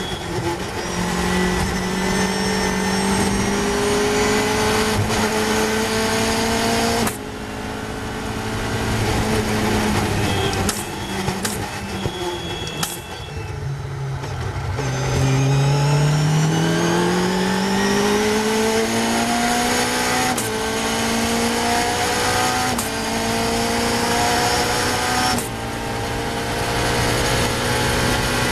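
Caterham's Cosworth 2.4-litre four-cylinder racing engine heard from the open cockpit, running hard at speed. It goes off the throttle and shifts down for a slow corner around the middle, then accelerates flat out with rising revs and quick upshifts about every two to three seconds near the end.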